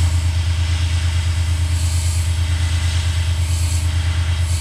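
Gravity-feed airbrush spraying black paint with a steady hiss, over the loud, steady hum of an air compressor with a fast, even pulse.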